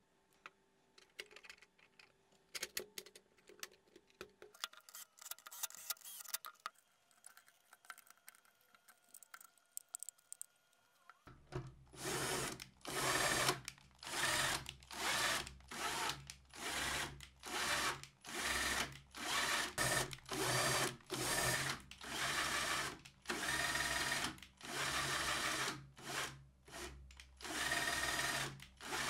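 Light clicks of plastic parts being handled and fitted, then a cordless drill run in about twenty short bursts, roughly one a second, turning the threaded adjustment screw of a 3D-printed router lifter to raise or lower the router.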